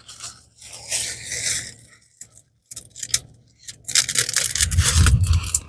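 Rustling, scraping and rubbing of a diamond painting canvas being handled, with a few light clicks, louder with a low rumble from about four seconds in.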